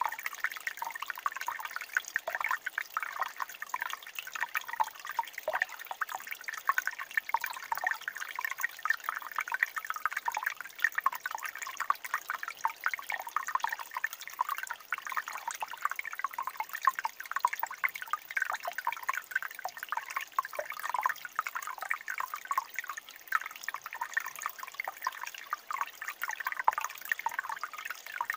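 Water trickling over stones in a small rocky mountain stream: a steady, busy babble of small drips and gurgles.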